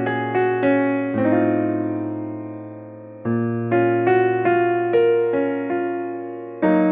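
Background music: a light electric-piano tune over held bass notes, with one chord left to fade for about two seconds midway before the notes pick up again.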